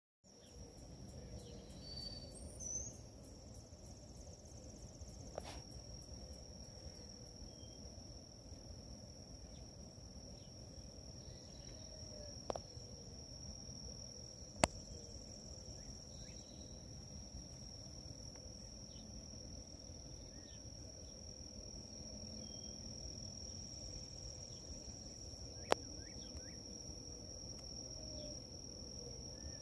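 Faint outdoor ambience: a steady high-pitched insect drone with low background rumble and a few scattered bird chirps. Four sharp clicks break through, the loudest about halfway through.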